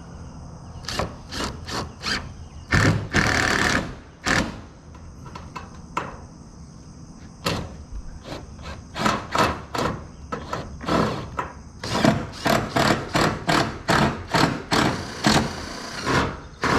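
A drill driving screws into sheet-metal roofing panels in short bursts, which come quicker, about two a second, in the second half.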